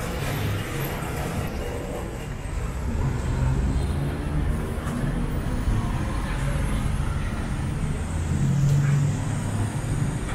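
Busy street traffic running steadily with a low rumble of engines, mixed with people talking nearby; a vehicle engine swells louder near the end.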